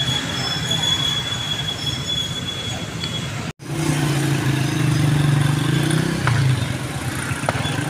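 Street traffic noise with vehicle engines running, a steady high whine over it for the first few seconds. After a brief dropout about halfway, a louder low engine drone comes in.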